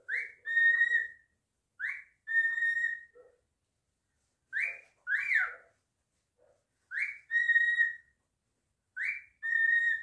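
Cockatiel wolf-whistling five times, about every two seconds: each whistle a short rising note followed by a longer held note, the middle one two rising notes instead.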